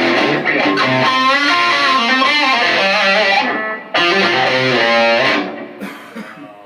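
Electric guitar playing at band practice, cutting out briefly about three and a half seconds in, then resuming and dying away near the end.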